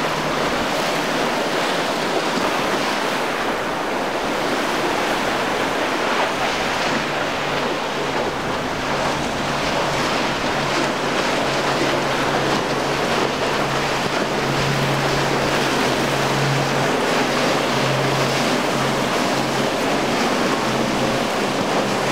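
Surf and waves with wind noise on the microphone, under a steady low drone of outboard motors from boats running through rough water. The drone is stronger in the second half.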